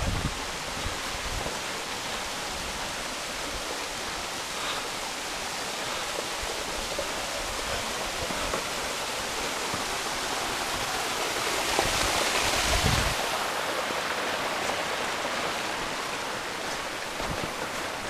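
Waterfall pouring down a rock face: a steady rush of falling and splashing water that swells louder about twelve seconds in.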